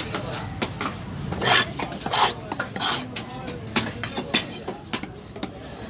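A gloved hand scraping and sweeping across a wooden chopping block, clearing it in a series of rasping strokes, the strongest about a second and a half and two seconds in.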